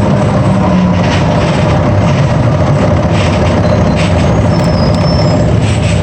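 Inside a moving bus: the diesel engine and road noise running steadily, with a few brief hissing or rattling surges partway through.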